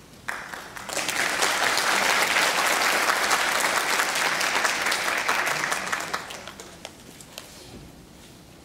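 Audience applauding: the clapping starts about a second in, holds steady for several seconds, then dies away to a few scattered claps.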